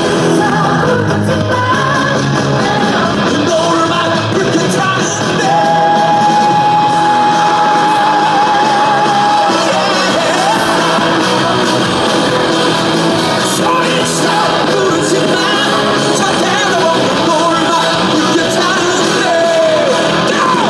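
Music: a song with singing over a band, including one long held note that wavers with vibrato near its end.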